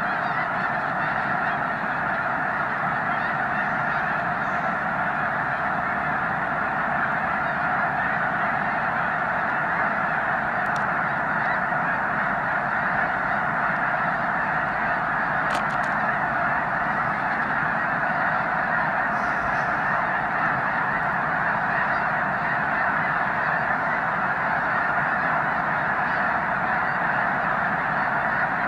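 A massive flock of snow geese calling, countless overlapping honks blending into a steady, unbroken din.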